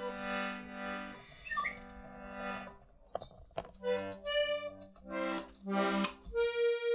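Instrumental music of held, reedy chords that change every second or two, with a couple of sharp clicks about three seconds in.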